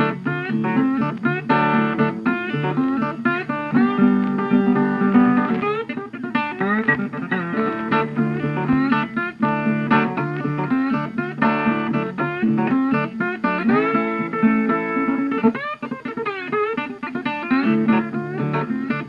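Background music: a plucked guitar tune with a steady run of notes, in a blues or country style.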